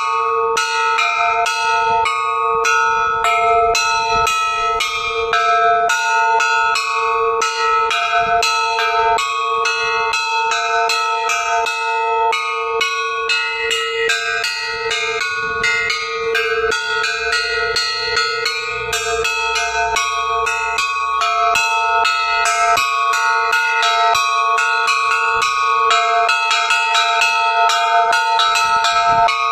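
Russian Orthodox church bells rung together in a fast, continuous chime. Several higher bells are struck in a rapid repeating pattern over a lower bell that keeps sounding throughout.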